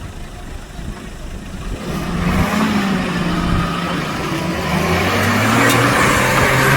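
Ford GPW jeep's four-cylinder engine revving up and pulling. A low rumble for the first two seconds, then rising in pitch and getting louder, loudest near the end.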